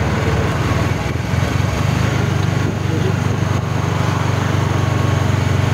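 Tuk-tuk's small engine running while under way, heard from inside the open cab: a steady low drone with a fast, even pulsing that gets a little louder about a second in.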